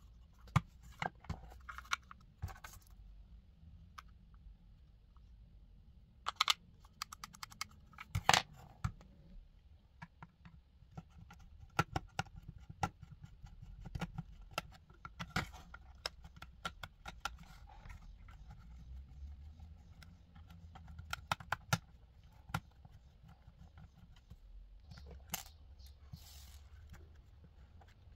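Scattered sharp clicks, taps and scrapes of a screwdriver working screws out of a small hard-plastic radio-controlled clock case, and of the case being handled and pulled apart.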